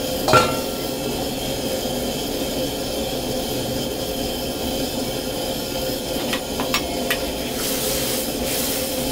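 Steady hiss of a wok of curry simmering over a stove burner, with one sharp metal clink about half a second in and a few light clicks of tongs and a ladle against the wok later on.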